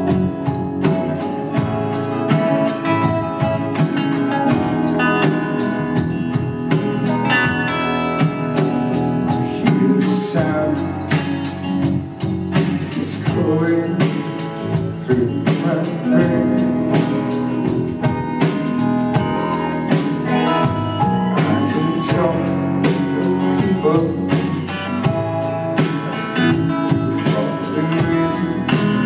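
Live band playing a song: acoustic guitar strumming with electric guitars, bass and a steady drum beat.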